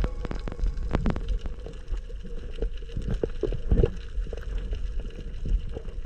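Muffled underwater noise: a steady low rumble of water movement with scattered clicks and knocks, the sharpest about a second in and again near four seconds.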